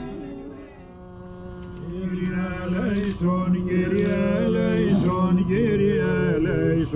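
Byzantine chant: male voices singing a melody over a low held drone note. The chant begins about two seconds in, as the ringing of church bells dies away.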